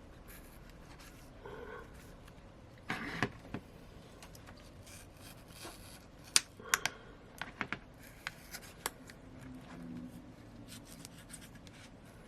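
Thin, sharp-edged opening tool scraping and clicking against a Samsung Note 5's glass back cover while it is pried at the edge, where the adhesive is still hard. One short scrape comes about three seconds in, then a run of sharp clicks between about six and nine seconds.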